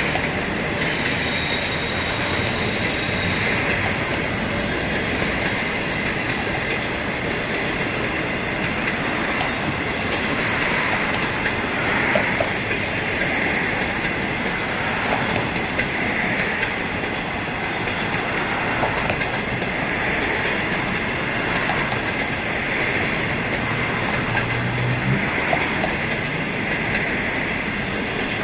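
Passenger train of green 25-series coaches rolling past, a steady rumble of steel wheels on rail that swells every second or two as bogies pass. A faint high wheel squeal sounds in the first few seconds.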